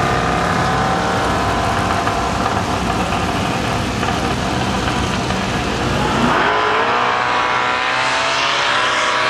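Drag radial race car engines running at the drag strip's starting line with a low, rough rumble. About six seconds in they rev up sharply and then hold a higher, steady note.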